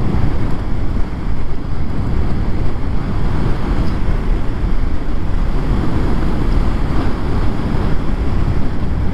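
Steady low wind noise on the microphone of a rider on an electric motorcycle at about 87 km/h, with road noise under it. There is no engine note, since the motorcycle's hub motor runs almost silently.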